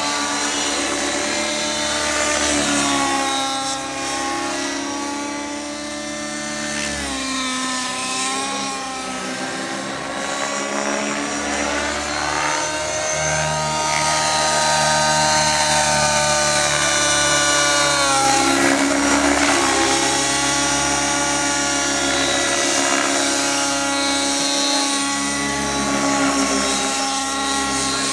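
Align T-Rex 700N nitro RC helicopter in flight: its glow engine and rotor blades run at high speed, the pitch swinging up and down over and over as it manoeuvres.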